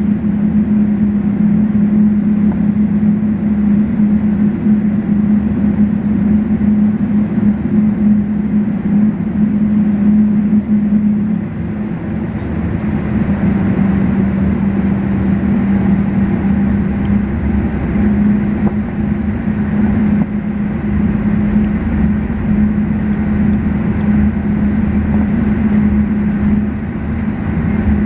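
Cabin noise of a Boeing 777-300ER taxiing after landing: a steady drone from the engines and air system with a strong low hum, and a low rumble from the wheels on the taxiway that grows heavier about twelve seconds in.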